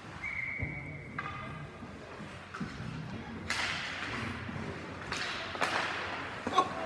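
Ice rink game sounds: a brief steady whistle tone near the start, then scattered knocks and thuds. A wash of noise builds from about halfway through.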